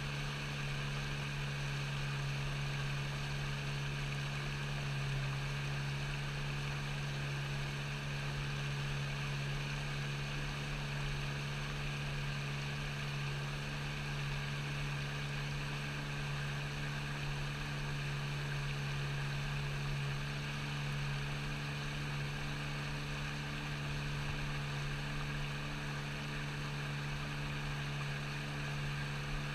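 A steady low-pitched mechanical drone with an even hiss over it, unchanging throughout.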